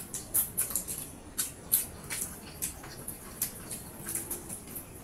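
People eating noodles with their hands: irregular wet smacking and clicking from chewing and slurping, several a second.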